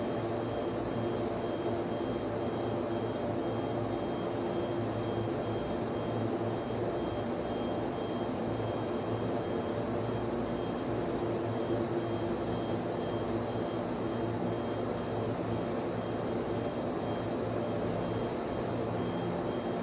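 Steady whir and hum of server and network-switch cooling fans, with a faint high tone that pulses evenly on and off.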